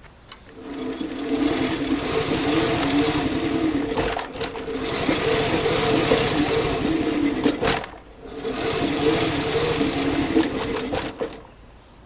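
Honda PC50's 49cc four-stroke single-cylinder engine running with a steady buzz, in three spells of a few seconds each that each drop away sharply, just after being got running with its carburettor still needing adjustment.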